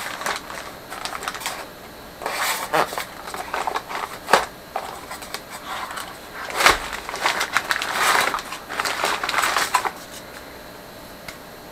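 Stiff brown wrapping paper crinkling and rustling in bursts as a new ring gear is unwrapped by hand, with two sharp knocks a little past four seconds and near seven seconds. It goes quiet near the end.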